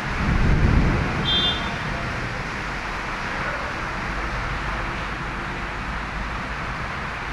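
Heavy rain falling with a steady hiss. A loud low rumble swells and fades over about the first second and a half, and a short high beep sounds about a second in.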